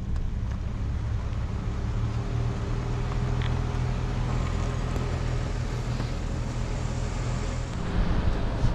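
Toyota Tundra pickup driving slowly on a dirt trail: a steady low engine hum with tyre and road noise, a little louder near the end.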